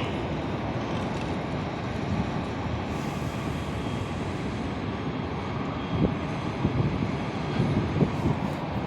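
Steady rumbling roar of an aeroplane, with several low thumps in the second half.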